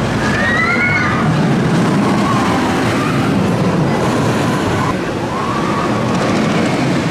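On-board sound of the Lightning Rod wooden roller coaster: a loud, steady rush of wind over the microphone and the train rumbling along the track. A few rising and falling yells from riders cut through it, about half a second in, around two seconds in and again past five seconds.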